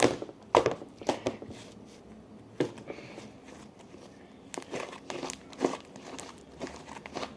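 Fluffy shaving-cream slime being squeezed and poked by hand, giving irregular sharp crackles and pops in short clusters.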